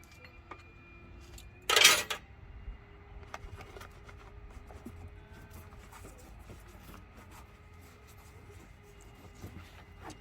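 Metal clinks and rattles from lowering and handling the hood of a Jeep Wrangler JK, with one loud clattering impact about two seconds in.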